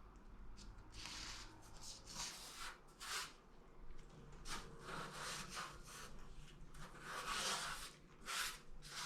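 Short, irregular rubbing and scraping strokes, about ten of them, as seam sealer is worked by hand into the seams around a steel wheel-well patch panel.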